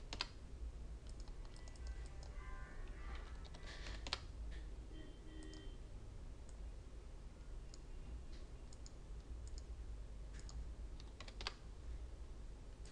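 Computer keyboard and mouse clicks: a few separate clicks spread out, the loudest about four seconds in, over a low steady hum.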